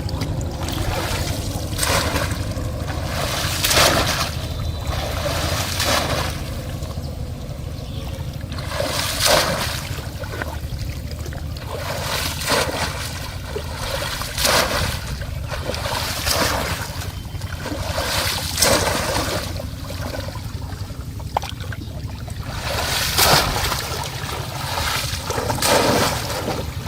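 Shallow water splashing again and again, a burst every two to three seconds, as a bamboo polo fish trap is plunged down into it, over a steady low rush.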